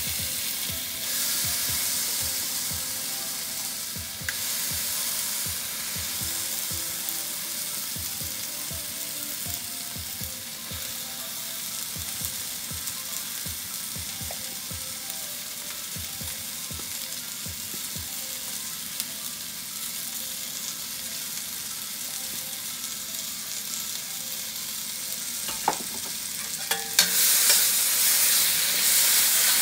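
Blended spice paste and aromatics (lemongrass, salam and kaffir lime leaves, ginger, galangal) sizzling steadily in hot oil in a stainless steel wok, with faint crackling. Near the end a metal ladle clinks and scrapes against the wok as the paste is stirred, and the sizzling grows louder.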